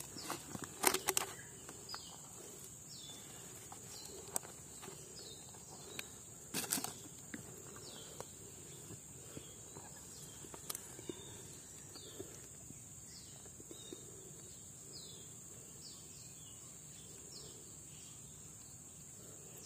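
Bare hands scraping and digging through dry, crumbly soil and dead leaves, with scattered crackles and a few louder scrapes, the strongest about a second in and again a few seconds later. Behind it runs a steady high-pitched insect drone and many faint, short falling chirps.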